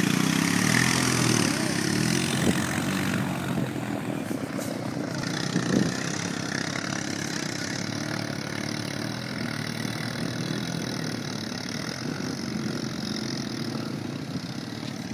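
ATV engine running steadily and slowly growing quieter, with two brief knocks about two and a half and six seconds in.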